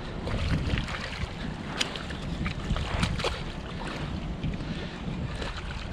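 Wind buffeting the microphone in a low, gusting rumble over a hiss of moving water, with scattered light ticks and splashes, a few sharper ones about 2 and 3 seconds in.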